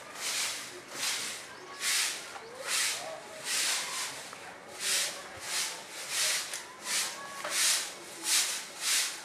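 Hand broom sweeping a concrete floor: a run of short swishing strokes, about one a second at first and coming quicker in the second half.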